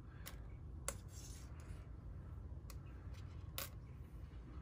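A few light, sharp clicks and clinks as thin metal borescope tool tips, a wire hook among them, are handled and set down on a plastic laptop lid, over a faint low hum.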